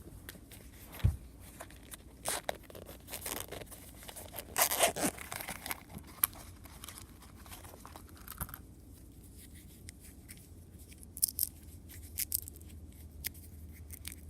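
Cable packaging being opened by hand: irregular tearing, crinkling and scraping of cardboard and plastic, with scattered sharp clicks and taps.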